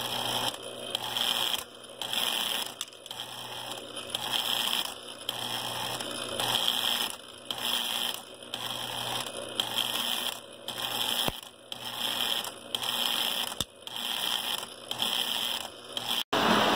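Lionel 3472 automatic refrigerated milk car's unloading mechanism buzzing in a regular pulse about once a second, each pulse driving the milkman figure to shove another milk can out onto the metal platform. Near the end the sound cuts off abruptly and a short louder burst follows.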